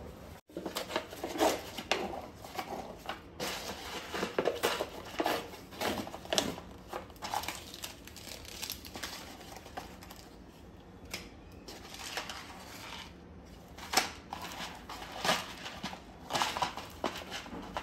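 Plastic wrappers and sauce sachets of instant cup noodles crinkling and rustling as they are handled and pulled out of the cups, in short irregular spells with a quieter stretch midway.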